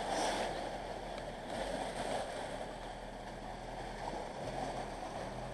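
Shallow water sloshing and washing around the wheels of a van and a boat trailer as they reverse into the river to launch the boat, over a low, steady engine hum.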